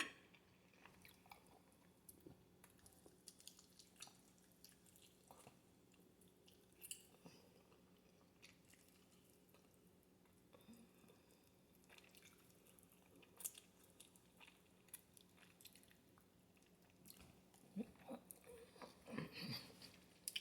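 Faint chewing and biting: soft scattered clicks and crunches of food being eaten, with a few louder ones near the end.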